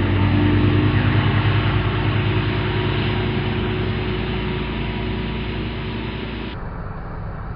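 Tow boat's engine running steadily under a loud rush of wind and water. The sound cuts off suddenly about six and a half seconds in.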